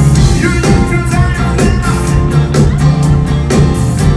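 Live band playing loud up-tempo music with a steady drum beat, bass and keyboards, and a singer's voice over it.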